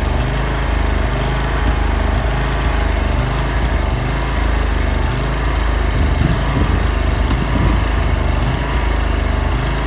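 Engine of a 2017 J.P. Carlton self-propelled stump grinder running steadily.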